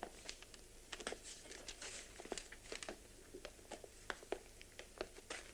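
Faint scattered rustling and short clicks, a dozen or more small ticks spread irregularly.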